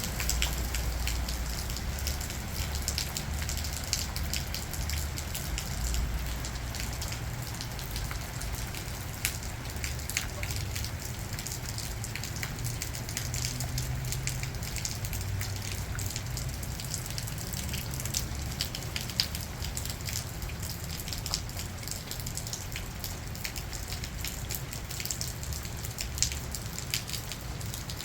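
Heavy rain falling, with many individual drops ticking on a nearby surface and a low rumble underneath.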